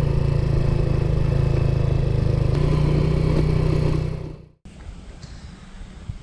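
Suzuki GN 125's single-cylinder four-stroke engine running steadily at low speed, fading out about four seconds in. Faint rustling of leaves and breeze follows.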